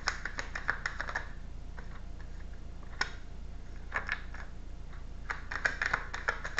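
A deck of tarot cards being shuffled by hand: quick runs of soft clicks and flicks as the cards slap together, with short pauses between runs.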